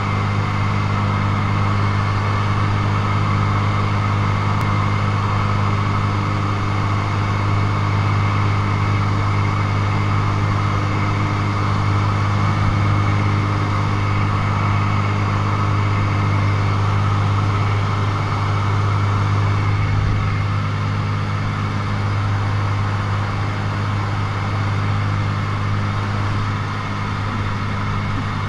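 Single-engine light aircraft's engine and propeller droning steadily, heard inside the cabin, with a strong low hum; the level eases slightly near the end.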